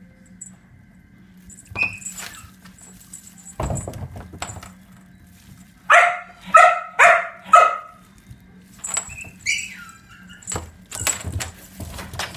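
A small dog yapping: four short, high barks about half a second apart around the middle, with more barking starting at the very end. Between them come a thud and light scuffing and clicks from a kitten playing with a feather toy on a tiled floor.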